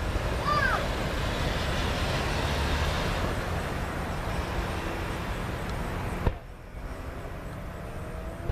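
Fireworks display ambience: a steady rumble and hiss from the show, with a short whistle about half a second in. A sharp crack comes just after six seconds and the sound briefly drops away, then faint rising whistles come near the end.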